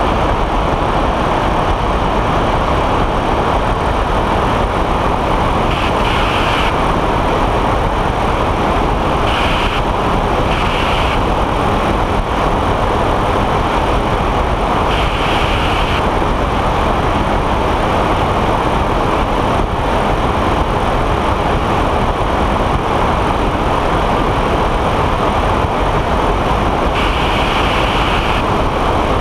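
Weight-shift trike in cruise flight: a steady rush of wind over the wing-mounted microphone mixed with the drone of the trike's engine and pusher propeller, with a brief higher hiss now and then.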